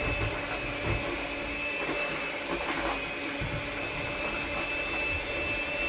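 Electric mixer running steadily as it whips thick akara bean batter, a constant motor whine with a few soft low knocks.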